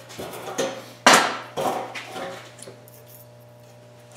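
A used high-carbon steel bandsaw blade being cut in two: a quick run of sharp snaps and clacks in the first two and a half seconds, the loudest about a second in.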